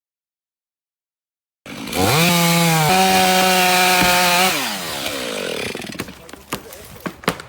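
A motor revs up, runs at a steady pitch for about two seconds, then winds down. Sharp clicks and taps follow near the end.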